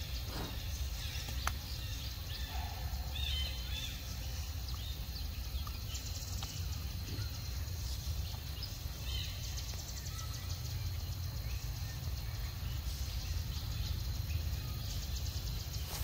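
Outdoor ambience: a steady low rumble with a few faint, short high chirps, about three seconds in and again about nine seconds in.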